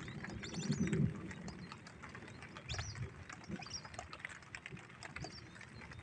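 Bird calls: scattered short high chirps and clicks, with a few low muffled swells about a second in and again near three seconds.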